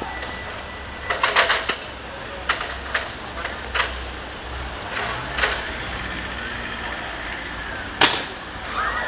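Burning overhead electrical cable arcing: irregular sharp crackles and pops, with the loudest crack about eight seconds in as it throws out a shower of sparks.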